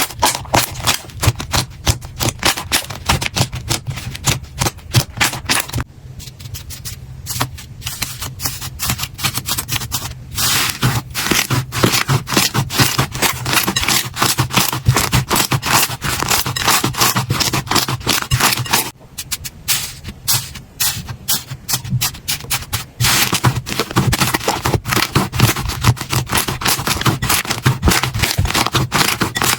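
Slime being squeezed and pressed by hand, making a dense run of crackling, clicking pops. The texture of the crackle changes several times.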